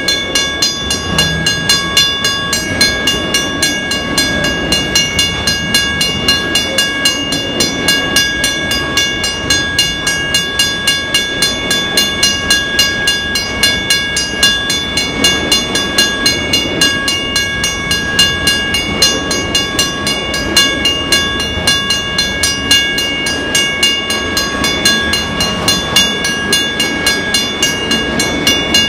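A freight train of autorack cars rolling past at a grade crossing, the wheels rumbling and clacking on the rails. Over it a railroad crossing bell dings in a steady, rapid rhythm.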